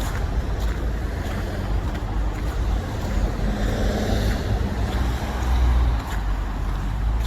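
Steady low rumble of city street traffic, with a vehicle passing about four seconds in, over faint footsteps crunching in snow at a walking pace.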